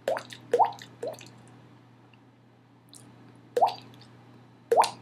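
Mouth-made water drop noise: a short pop with a quick rising pitch, like a drop plopping into water, made five times, three in quick succession at the start and two more near the end.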